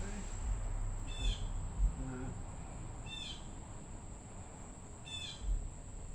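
A bird calling outdoors: a short falling chirp repeated about every two seconds, three times. Over it runs a steady high-pitched tone, with a faint low rumble underneath.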